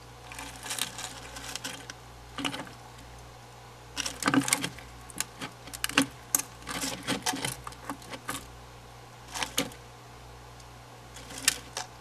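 Eastern Japanese common toads feeding from a plastic dish of mealworms: irregular runs of light clicks and taps from the toads lunging at the worms and clambering over the dish and gravel, in several clusters a few seconds apart, busiest about four to eight seconds in.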